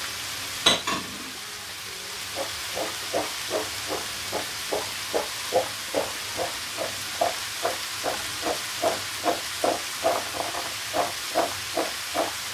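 Vegetables sizzling steadily in a frying pan. There is a sharp click about a second in, then from about two seconds a soft regular beat of roughly two and a half pulses a second.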